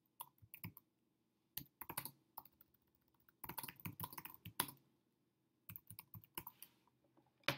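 Computer keyboard typing: several short runs of quick keystrokes separated by pauses of about a second, as a line of text is typed.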